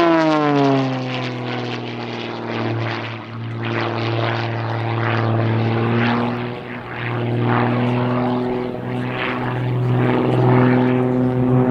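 Zivko Edge 540 V3 aerobatic plane's Lycoming engine and propeller in flight. The engine note falls in pitch in the first second, then holds a steady drone that swells and fades as the plane manoeuvres.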